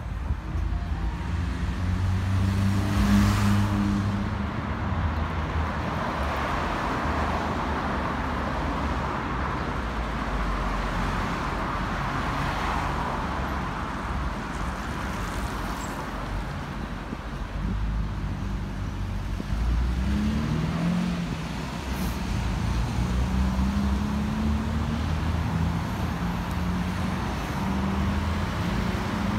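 City road traffic passing: the steady rumble of car and truck engines and tyre noise, with engine notes rising in pitch as vehicles speed up about twenty seconds in.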